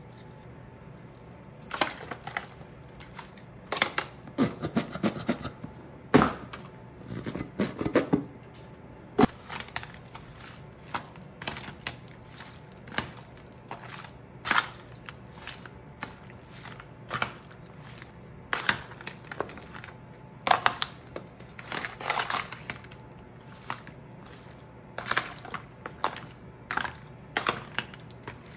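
A spoon stirring meatballs and cocktail sausages through a sticky sauce in a disposable aluminium foil pan. It makes irregular scrapes, clicks and crinkles of the thin foil, starting about two seconds in.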